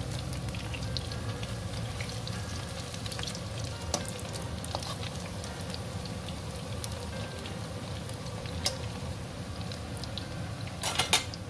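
Grated taro and shrimp fritters deep-frying in a wok of hot oil, a steady sizzle and crackle. A metal slotted spatula clinks against the wok a few times, with a quick cluster of sharp knocks near the end.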